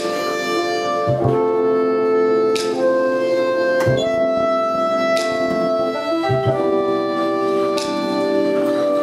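Instrumental music: sustained held chords that change every second or two, with a low thump at several of the chord changes.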